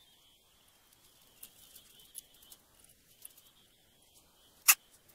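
Footsteps crunching faintly on loose gravel, then one sharp, loud click about four and a half seconds in.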